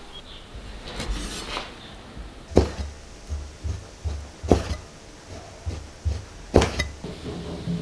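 Chinese cleaver slicing pork kidney on a thick wooden chopping block. The blade knocks sharply on the wood three times, about two seconds apart, with lighter taps and cutting strokes in between.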